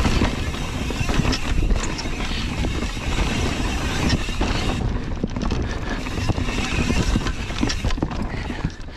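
Wind rushing over the microphone mixed with tyre roar and frequent rattles and knocks from an enduro mountain bike descending a dirt singletrack at speed.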